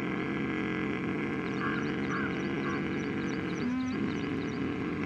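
Ujjayi pranayama breathing: one long, steady inhalation drawn in through a narrowed throat, making a continuous throaty rasping sound.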